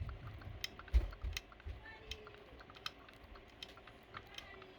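Chain on a motorized bicycle ticking and clicking irregularly as it is turned slowly by hand, with the sharpest click about a second in. The clicks come from chain links with bad rollers catching on the engine's pinion gear, a worn chain that makes the chain wobble.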